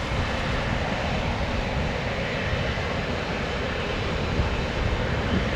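Steady rumble and hiss of jet airliner engines running on the airfield, with no distinct tones and no sudden changes.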